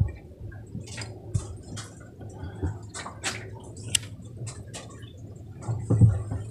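Water sloshing and dripping in a boat's fish hold: irregular small splashes and drips over a faint steady low hum, with a louder low thump shortly before the end.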